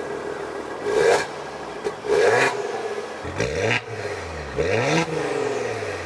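The 3.0-litre twin-turbo V6 of a 2020 Maserati Levante S Gransport, heard from its quad-tip exhaust, is revved in place. It is blipped about four times, each rev rising sharply and dropping straight back to idle.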